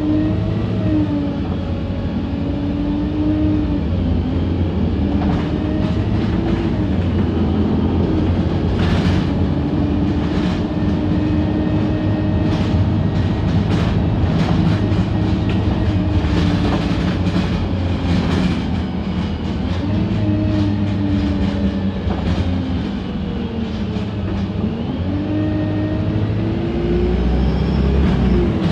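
Wright StreetLite single-deck bus heard from inside the passenger saloon while driving: a steady engine and road rumble with a drivetrain whine that rises and falls several times as the bus speeds up and slows. Sharp knocks and rattles come through over bumps, thickest in the middle.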